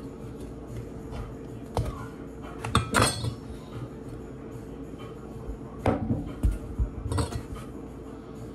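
A kitchen knife cutting into the skin of a whole raw breadfruit, giving a handful of sharp knocks and clinks. They come in two groups, about two to three seconds in and again about six to seven seconds in.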